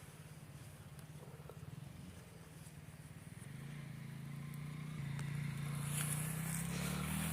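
An engine running with a low, steady pulse, growing louder in the second half of the clip, with a slight rise and fall in pitch near the end.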